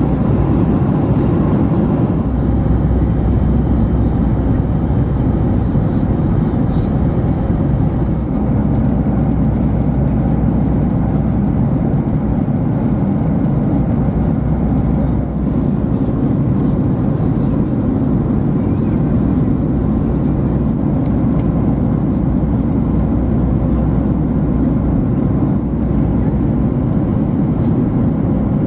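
Steady cabin noise of a Boeing 737 MAX airliner in cruise, heard from a window seat: a deep, even rush of airflow and jet engines with no changes.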